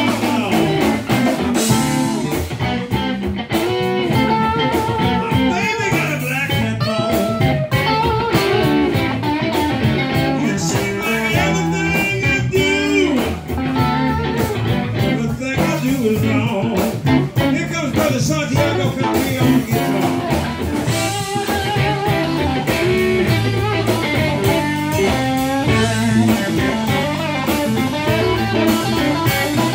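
Live blues band playing: electric guitars with bent, wavering notes over a bass guitar and a steady beat.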